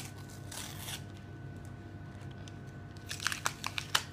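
A Merlin's Premier League 2016 sticker packet wrapper being torn open and crinkled by hand: a burst of tearing about half a second in, then a quick run of sharp crinkles near the end.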